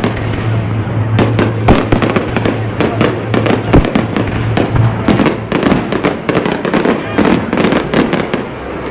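Fireworks display: rapid, irregular volleys of bangs and crackles from aerial shells going off one after another, with a steady low hum beneath that fades about halfway through.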